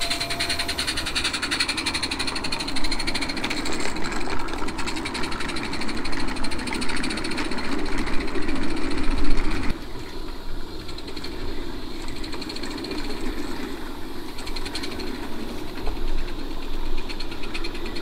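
Gas-fired 32 mm gauge live-steam model locomotive running, with a rapid, even chuffing from its exhaust and the clatter of its small wheels on the rails. The sound changes and gets quieter about ten seconds in.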